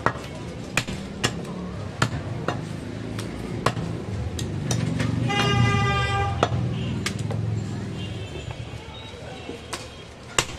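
A cleaver chopping goat meat and bone on a wooden log chopping block: sharp, irregular chops roughly once or twice a second. About five seconds in, a vehicle horn sounds for about a second over a low, steady rumble.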